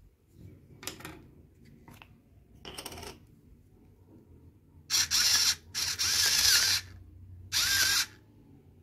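A few faint scratches, then three loud bursts of harsh, grating scraping, each about half a second to a second long, the middle one the longest.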